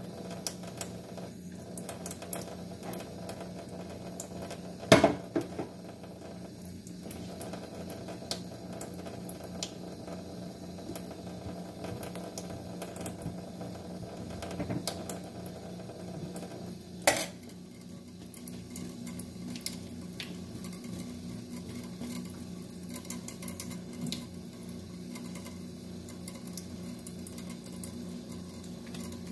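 Kitchen tap running a thin stream into a stainless-steel sink while fruit is cut with a knife over a ceramic bowl, with light clinks of knife and bowl. Two sharp knocks stand out, one about five seconds in and another about seventeen seconds in.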